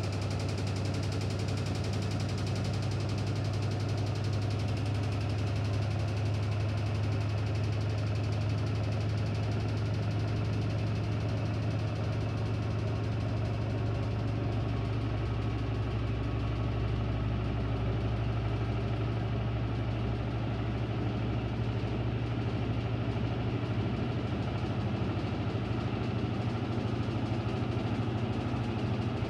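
Electrolux Ecologic 12 kg washing machine running: a steady motor hum with vibration, a deeper hum joining partway through.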